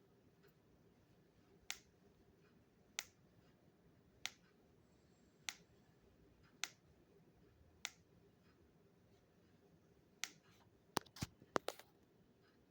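Loud clicking from a rotating left foot: a joint in the ankle or foot clicks once with each rotation, about every 1.2 seconds, six times in a row. Another click follows, then a quick run of sharper knocks near the end.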